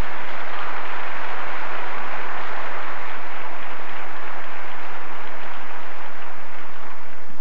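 A large congregation applauding steadily, a welcome for the choir director and musicians.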